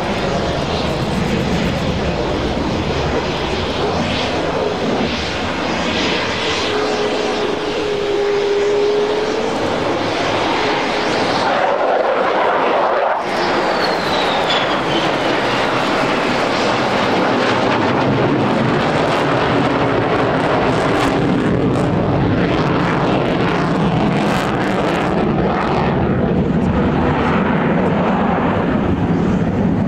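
Twin GE F110 turbofans of a Boeing F-15QA fighter jet in display flight, a loud, continuous jet roar. About thirteen seconds in, the jet passes close by, and a high whine slides down in pitch as it goes past.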